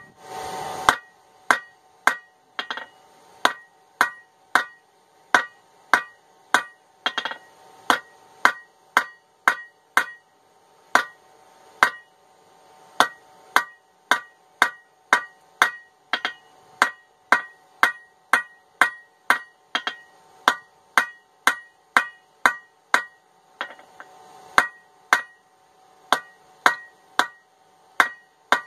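Blacksmith's hand hammer striking hot steel held in tongs on an anvil, drawing out a point on an old ball peen hammer head. Light, steady, evenly placed blows about two a second, each ringing briefly, with a short pause near the end.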